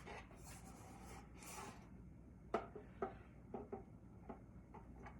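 Faint rustling, then a run of light, sharp clicks from about halfway on: hand snips being worked at the tie-downs that hold a tool in its packaging.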